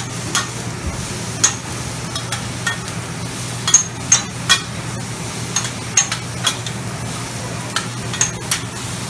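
Metal spatulas clacking and scraping on a flat-top griddle as a stir-fry of noodles and meat is tossed, in irregular sharp clacks over a steady sizzle. A steady low hum runs underneath.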